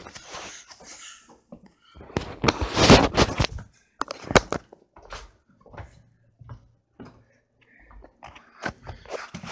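Handling noise from a handheld camera being moved about: scattered knocks and clicks, with a louder stretch of rubbing about two to three and a half seconds in.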